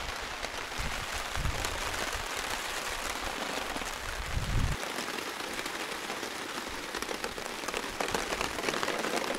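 Steady rain falling on a tarp overhead, individual drops ticking on it, with a brief low rumble about four and a half seconds in.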